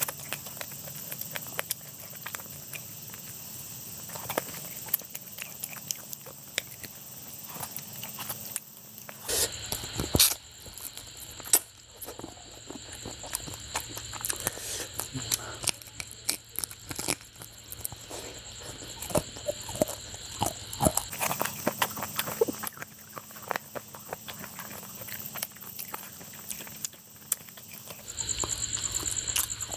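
Close-miked wet chewing and lip smacking, many small sharp clicks, from someone eating rice and fish curry by hand. Near the end, curry gravy is poured from a bowl onto the rice with a short splashing pour.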